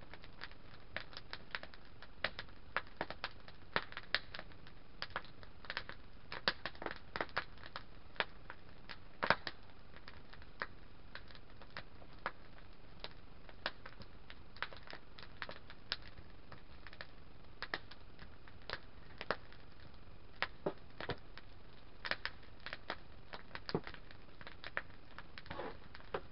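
Log campfire burning in a metal fire pit, crackling with irregular sharp pops, several a second, a few of them louder.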